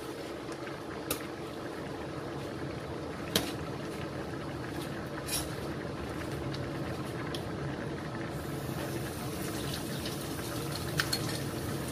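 Creamy macaroni soup simmering in an uncovered pan on the stove: a steady bubbling hiss, with a few light clicks, the sharpest about three seconds in.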